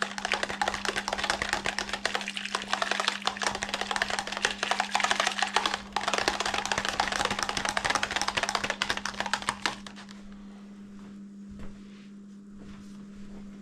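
Small wire whisk beating an egg with water and vinegar in a plastic bowl: fast, dense ticking of the wires against the bowl that stops about ten seconds in. A steady low hum runs underneath.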